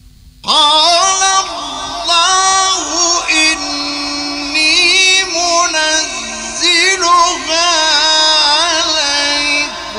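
Male Quran reciter in ornamented mujawwad recitation. After a pause with faint hum, a long, high melismatic phrase starts about half a second in, its pitch wavering and sliding between held notes. It breaks off near the end into a slowly fading echo.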